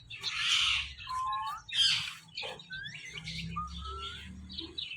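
Ringneck parakeet calling: a harsh screech at the start and another about two seconds in, between short whistled notes that glide up and down.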